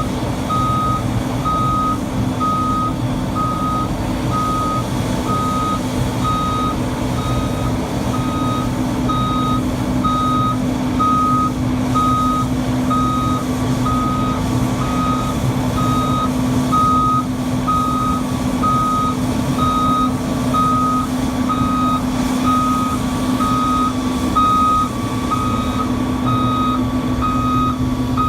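Excavator engine running steadily, with a single-tone motion alarm beeping about once a second throughout.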